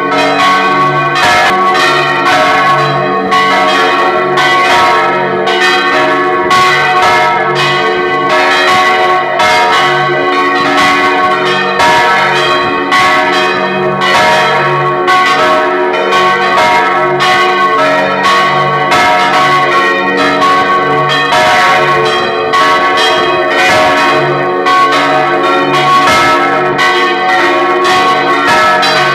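Several church bells swinging and ringing together close up, their clappers striking again and again so that the tones overlap in a continuous peal, with a deeper bell sounding at a slower steady beat beneath the higher ones. The bells are swung on wheels by electric motors.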